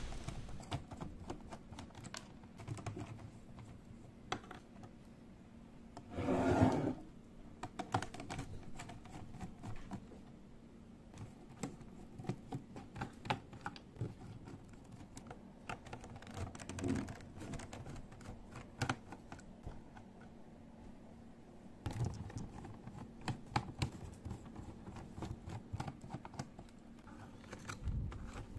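Small clicks, taps and scrapes of a screwdriver working screws out of the plastic underside of an HP PS/2 keyboard, with the plastic case knocking lightly on the table. A louder rustle lasting about a second comes about six seconds in.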